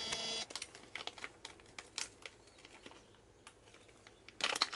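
Irregular light clicks and taps of small hard objects, opening with a brief squeaky scrape and ending in a quick cluster of clicks.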